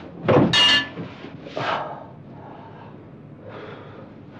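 A staged fight: a heavy blow and a glass bottle smashing about half a second in, with a ringing crash, then a second hit about a second later, followed by quieter scuffling.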